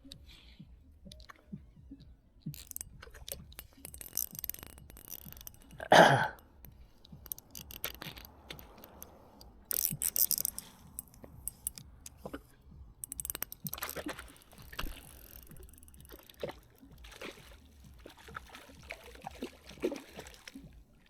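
Handling noises in a kayak as a caught trout is landed: scattered knocks and clicks with short splashy bursts of water, and one loud hit about six seconds in.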